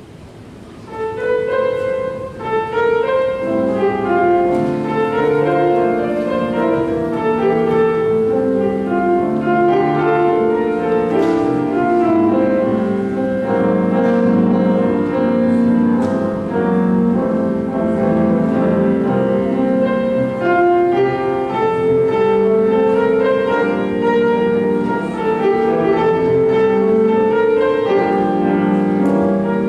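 Instrumental offertory music led by piano, with long held notes, starting about a second in and carrying on steadily.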